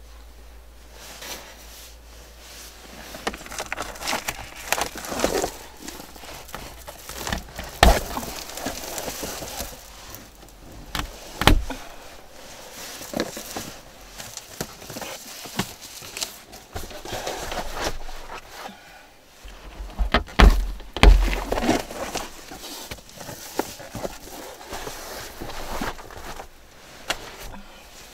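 Crinkling and rustling of reflective foil window covers being taken down and folded inside a Jeep Wrangler's cabin, with several sharp knocks and thumps against the interior, the loudest a cluster about two thirds of the way through.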